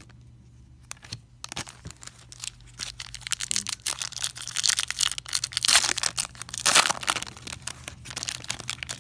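Foil baseball card packs being torn open and crinkled: a crackling rustle that starts about a second in and is loudest in the middle.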